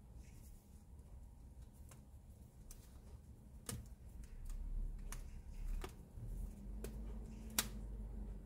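A rubber band being stretched and twisted around a cloth bundle in a metal mesh strainer: a handful of sharp little snaps and clicks over faint handling noise, the loudest snap near the end.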